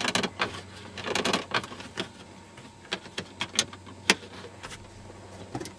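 Plastic dashboard trim around a Mazda's instrument cluster being pried loose by hand: a run of irregular sharp clicks and snaps as the clips and panels work free.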